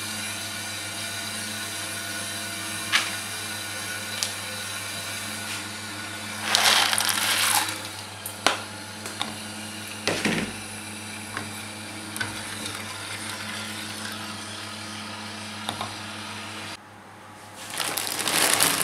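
Steady electrical hum, with a few small clicks and a short burst of noise about seven seconds in. About seventeen seconds in the hum stops and a plastic bag of dry pasta rustles as it is handled.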